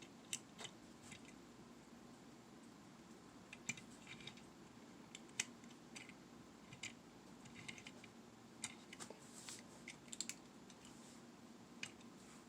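Near silence broken by faint, scattered clicks and light taps of a small die-cast model car being handled and turned over, its opening hood clicking.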